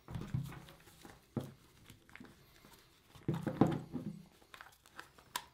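Handling noise from a plastic tactical headset as an ear cup is clipped onto the headband: irregular plastic clicks, knocks and rubbing, loudest in a cluster about three and a half seconds in.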